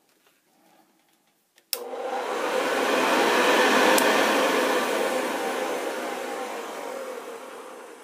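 1960s Hoover Convertible 70 upright vacuum cleaner switched on with a sharp click. Its motor rises to a loud rushing whir, then a faint click comes about two seconds later and the motor winds down slowly over several seconds.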